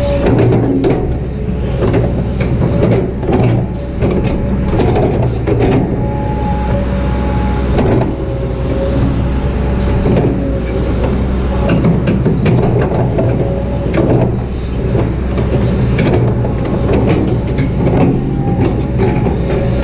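Kobelco SK200-8 excavator's diesel engine running steadily under load, with a whine from the hydraulics and scattered short knocks and scrapes as it works.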